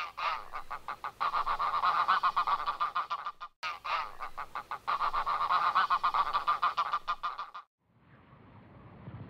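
A flock of geese honking, many calls overlapping in quick succession. It breaks off for a moment about three and a half seconds in, resumes, and stops abruptly about a second and a half before the end.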